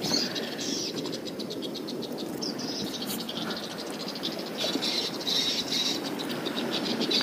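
High twittering and chirping of swiftlets, coming and going in rapid runs, over a low steady rustle.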